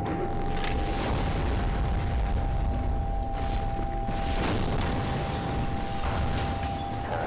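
Animated battle sound effects: a continuous low rumble broken by several heavy booms and impacts, with a steady high hum underneath.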